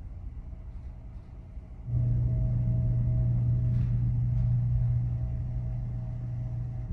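Steady low drone of the car ferry's engines and machinery, heard inside a passenger cabin. It gets abruptly louder about two seconds in, with a faint steady hum over it.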